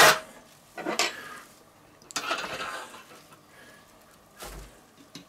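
Steel rotisserie spit and its prong forks clanking and scraping as they are worked onto a roast over a wooden board. A sharp clank at the start is the loudest, another comes about a second in, then a stretch of scraping, and a duller knock near the end.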